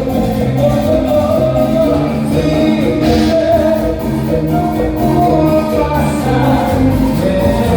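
Live cumbia played by a band: a melody over a repeating bass line and a steady percussion beat.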